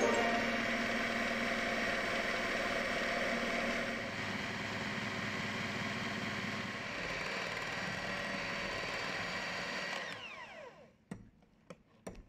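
Electric hand mixer running steadily, its twin beaters whipping egg whites and sugar into meringue in a glass bowl. Near the end it is switched off and the motor winds down with a falling whine, followed by a few light clicks.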